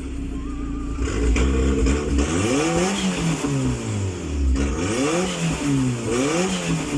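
Turbocharged Nissan Platina four-cylinder engine revved in a series of quick throttle blips, its pitch rising and falling repeatedly, with the turbo's compressor flutter (surge) on each throttle lift. For about the first two seconds it runs low and steady, and the blips come faster near the end.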